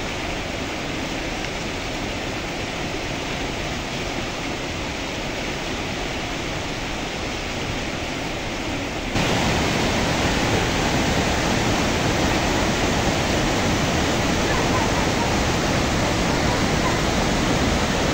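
Mountain stream and small waterfall: a steady rush of white water over rocks, stepping up louder about halfway through.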